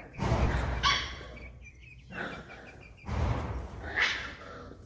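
Chickens and puppies: soft high chirping and a brief squeal about a second in, over two stretches of low rumbling noise.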